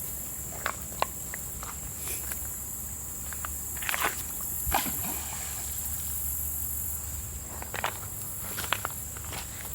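Irregular footsteps and small scuffs, over a steady high-pitched insect drone.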